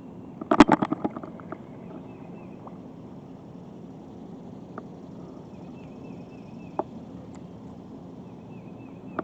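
A quick run of about ten sharp clicks, loudest at first and fading within half a second, then a few single ticks. Faint high chirps sound over a steady low outdoor hum.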